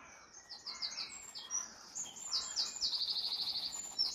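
A small songbird singing a long, rapid song of high, quick notes, with a fast, even trill about three seconds in.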